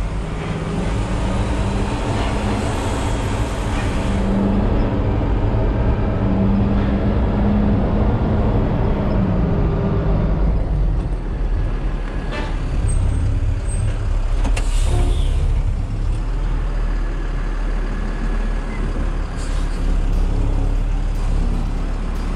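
Yard truck's diesel engine running under load while maneuvering a trailer, easing off about ten seconds in. There is a short hiss of air about fifteen seconds in.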